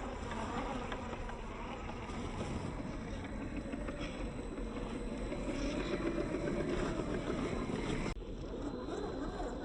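Small electric motor and geared drivetrain of an RC crawler truck running with a buzzing whine, with an abrupt break shortly before the end.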